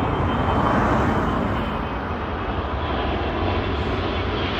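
Airbus A380 airliner on final approach passing low, its four jet engines giving a steady rushing rumble with a faint high whine.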